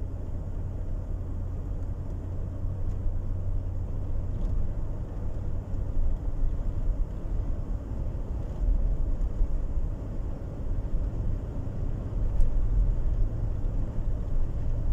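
Cabin noise inside a 2009 Chevrolet Tahoe accelerating gently on the road: a steady low rumble of engine and tyres.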